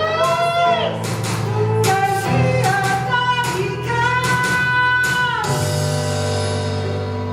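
A song: a sung vocal line with long, wavering held notes over an instrumental backing. The voice stops about five and a half seconds in, and the backing chord rings on, slowly fading.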